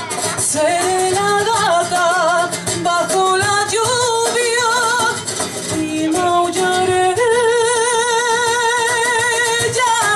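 A woman singing a Spanish ballad into a microphone with instrumental accompaniment, her notes carrying a wide vibrato. About seven seconds in she holds one long note for nearly three seconds.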